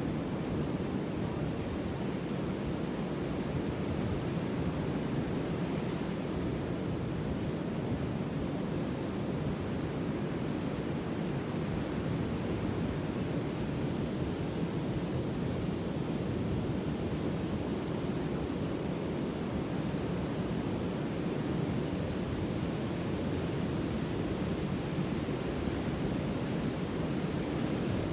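Sea surf: a steady, even rushing wash of waves, with no single breaker standing out.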